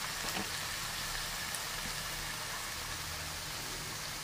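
Chopped spinach sizzling softly in a frying pan, a steady hiss with a few small pops, as the leaves cook down in their own moisture with no water added.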